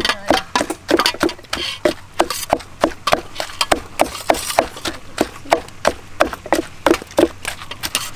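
Wooden pestle pounding garlic and yellow curry paste in a mortar, a steady dull knock about three strokes a second.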